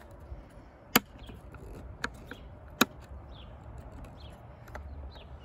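Three sharp plastic clicks, spaced about a second and then about three-quarters of a second apart, with the first and last loudest. They come from the yellow mode-selector switch of a Radiodetection C.A.T4 cable locator being clicked between settings.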